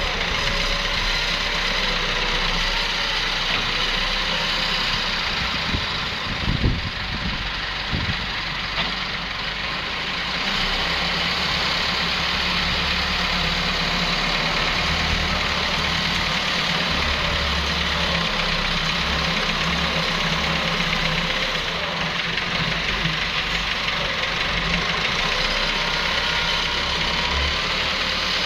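Wheel loader's diesel engine running steadily, its low note rising and falling as it works, with a couple of short knocks about seven seconds in.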